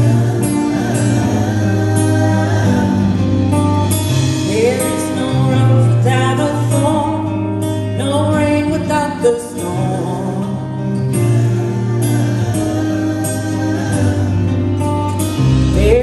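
Live band music: the instrumental introduction of a pop-rock song, with guitar over a steady bass line.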